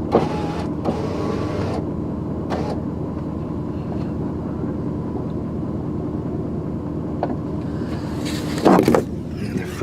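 Pickup truck engine running steadily. There are noisy rushes at the start, a short one about two and a half seconds in, and a louder burst near the end.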